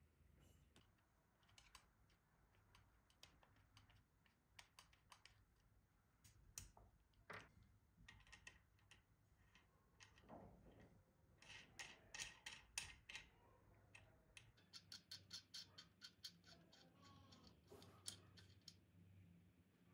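Faint, irregular small clicks and taps, then a quick, even run of clicks about fifteen seconds in.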